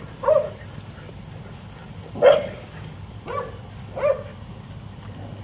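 Dog barking four times in short, sharp barks while the dogs chase each other in play; the second bark is the loudest.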